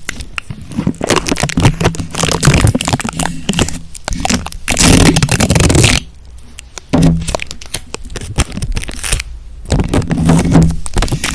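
Close-miked ASMR scratching and crackling trigger sounds: bunches of dense, rapid clicks and scrapes, broken by two brief lulls, one a little past halfway and one near the end.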